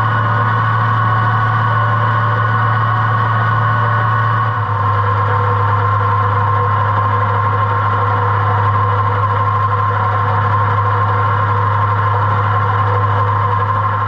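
Tractor engine running steadily under load while driving an Oliver 356 sickle-bar mower cutting grass, with the mower's knife worked by a newly made wooden pitman arm. The engine note drops slightly about four and a half seconds in.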